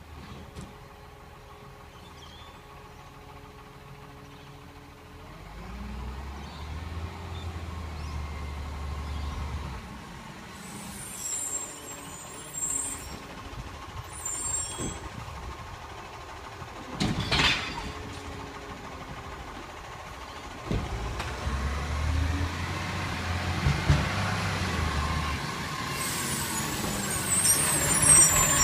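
Side-loading recycling garbage truck approaching and pulling up: its diesel engine running and rising in pulls, with short hisses of the air brakes and one sharp loud hiss or bang partway through, getting louder as the truck draws near and stops.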